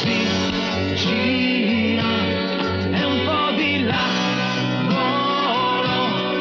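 Pop music with guitar and a bass line pulsing in a steady rhythm, a melody gliding over it.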